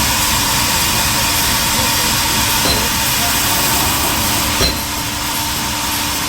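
Sawmill machinery running steadily, a loud hiss over a constant hum, with a single knock about four and a half seconds in, after which it runs a little quieter.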